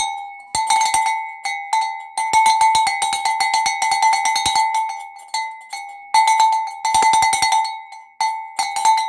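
Large ox bell (chocalho de boi) shaken, its clapper clanking loudly against the metal with one ringing pitch; single irregular strokes alternate with two runs of rapid shaking, in the middle and again near the end.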